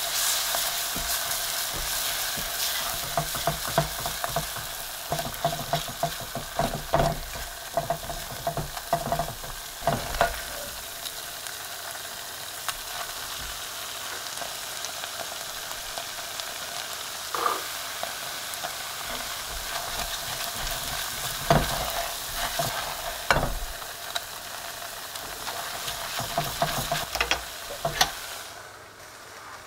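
Silicone spatula stirring and scraping a butter-and-flour roux in a saucepan, with steady sizzling from the butter and irregular louder scrapes against the pan.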